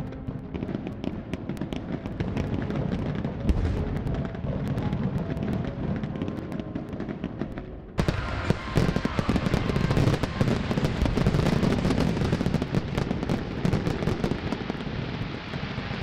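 Aerial fireworks bursting in quick succession, with bangs and crackle over a low rumble. About eight seconds in it suddenly swells into a dense barrage of many bangs and crackling at once.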